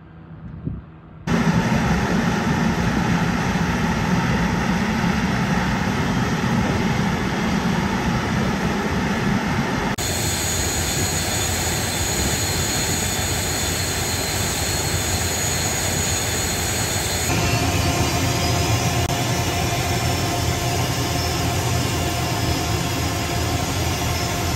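Jet fighter engines running steadily on the ground, a high whine over a rumble. The sound starts abruptly about a second in and changes sharply twice.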